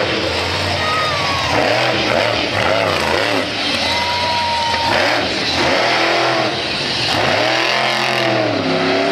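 Monster truck engine revving hard, its pitch rising and falling again and again as the truck wheelies and drives across the dirt.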